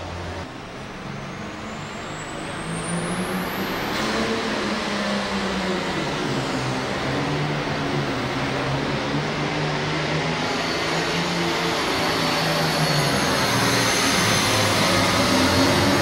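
John Deere super farm pulling tractor's diesel engine running hard under full load as it drags the weight sled down the track, growing gradually louder. A high whistle rises steeply between two and four seconds in, and a steady high whine sits over the engine through the second half.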